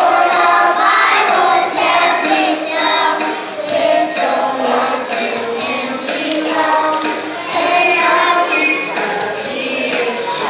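A group of preschool children singing a song together as a choir.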